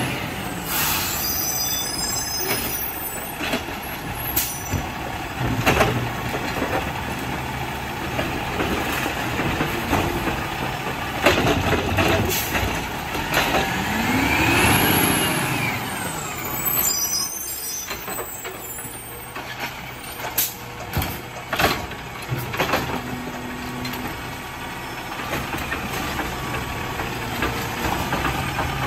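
Autocar ACX garbage truck with a Dadee Scorpion automated side-loader arm pulling up along the curb: the engine runs steadily, revs up and back down about halfway through, and air brakes hiss as it stops. Near the end the arm lifts a recycling cart with knocks and clatter.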